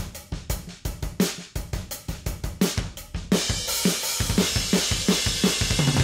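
A heavy metal/grunge drum groove played back from a virtual drum instrument, with a 14x22 Ludwig Classic 3-Ply Maple kick auditioned in the kit. There are distinct kick and snare hits at first. About three seconds in, the playback thickens into a dense, steady wash beneath the hits.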